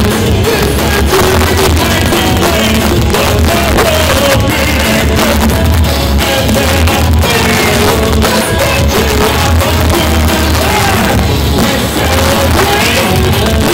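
Heavy metal band playing live at full volume: distorted electric guitars and a pounding drum kit under a singer's vocals.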